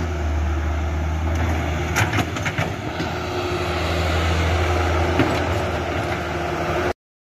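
Remote-control toy excavator's small electric motors and plastic gearing whirring steadily, with a quick run of clicks about two seconds in; the sound cuts off abruptly near the end.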